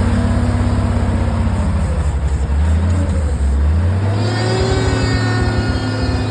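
Engine of a piece of heavy equipment running, its speed dropping about two seconds in and picking back up, with a higher whine joining from about four seconds in.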